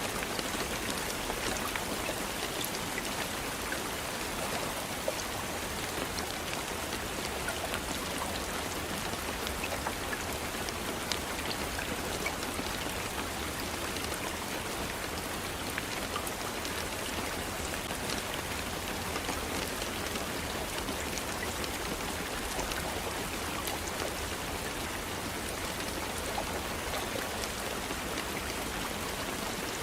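Steady rain falling, with a dense patter of individual drops landing on a surface.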